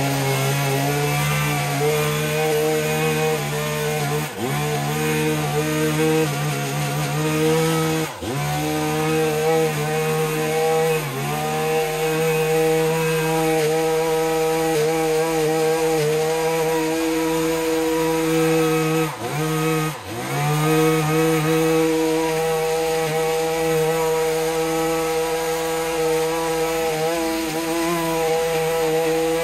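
Small two-stroke petrol engine of a handheld garden power tool, running flat out. Its pitch dips briefly about five times and recovers each time.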